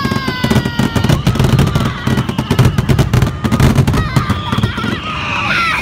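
Fireworks going off in rapid succession, a dense run of bangs and crackling, with a whistle slowly falling in pitch during the first second and crowd voices cheering near the end.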